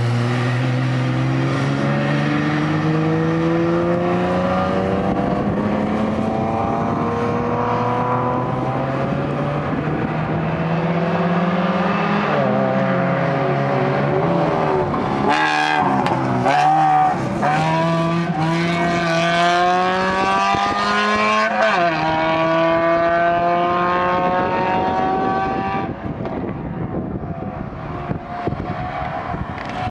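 Mitsubishi Lancer's four-cylinder engine lapping a race circuit: the revs climb slowly through long pulls and drop sharply at gear changes or lift-offs about 12, 16 and 22 seconds in. There is a patch of crackle around the middle, and the sound grows duller near the end.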